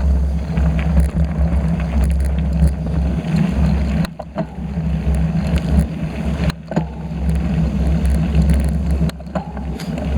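Wind rumbling and buffeting on a camera microphone carried on a moving bicycle, rising and falling in gusts, with faint rattles from the ride.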